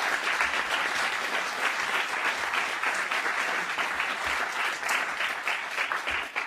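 Audience applauding: many hands clapping in a dense, steady patter that fades away at the end.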